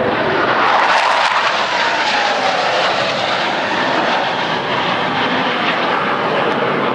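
Blue Angels F/A-18 Hornet jets making a loud, low pass. An engine whine drops in pitch between about one and three seconds in as a jet goes by, and the broad jet noise carries on after it.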